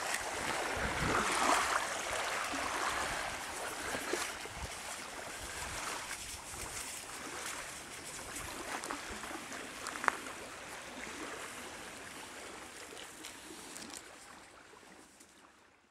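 Small waves lapping on a sandy shore, a steady watery hiss that fades out toward the end, with one brief sharp click about ten seconds in.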